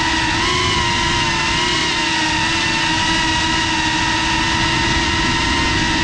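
FPV drone's electric motors and propellers whining steadily, recorded from the drone itself, with a low rush underneath; the pitch wavers slightly.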